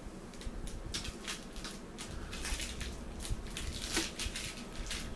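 Clear plastic bag and wrapping crinkling in quick, irregular crackles as a vinyl figure is handled and unwrapped.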